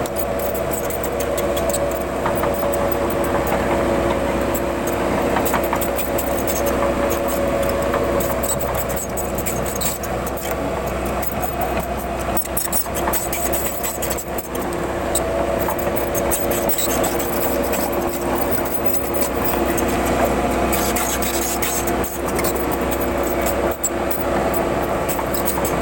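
Diesel engine of a JCB backhoe loader running steadily, with some rattling.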